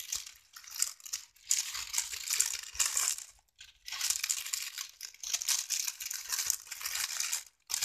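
Clear cellophane crinkling and crackling as it is gathered and bunched up by hand around a small card box, in several spells with short pauses between them.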